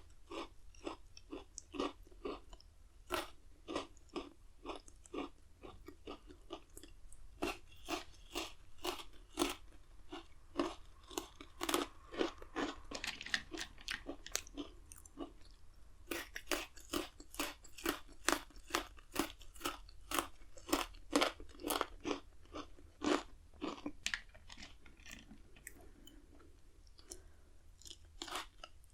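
Chocolate-coated Pocky biscuit sticks being bitten and chewed close to the microphone: a steady run of crisp crunches, about two or three a second, with a short pause about 24 seconds in before the crunching resumes.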